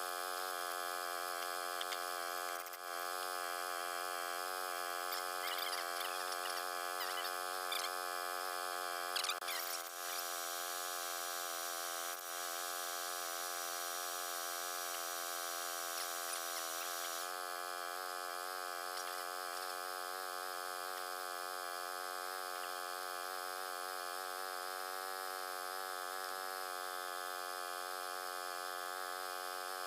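A steady electrical hum made of many even tones, with a few faint clicks and taps in the first ten seconds.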